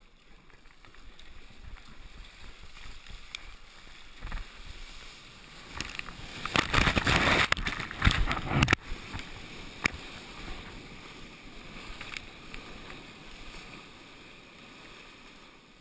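Sea kayak in the surf: paddle splashes over water and wind noise, then about six seconds in a loud rush of whitewater as a breaking wave washes over the kayak and camera, stopping suddenly just before nine seconds. After it, the softer hiss of broken whitewater as the kayak runs with the wave.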